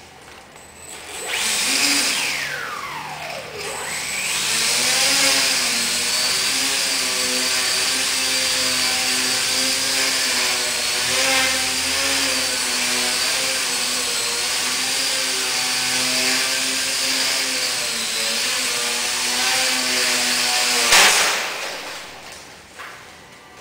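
Micro shock-flyer's 9 g brushless outrunner motor (WOW 9g) spinning a 7x3.5 propeller, a steady buzzing whine whose pitch wavers with the throttle as the plane flies. The motor cuts out near the end with a sharp knock as the plane crashes onto the TV stand.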